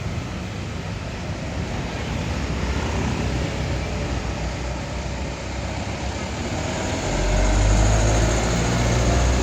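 A large tour bus's diesel engine running as it pulls past, growing clearly louder about seven seconds in, over steady traffic noise.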